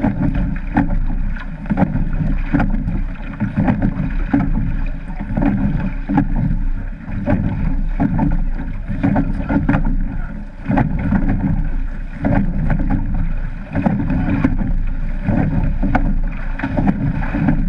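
Water rushing and slapping along the hull of a rowed surf boat, with wind buffeting the boat-mounted camera's microphone. Sharp knocks from the oars working in their gates recur throughout.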